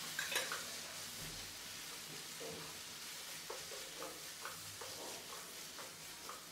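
A spatula stirring scrambled egg into a thick simmering masala in a non-stick pan: faint sizzling under irregular soft scrapes and taps of the spatula.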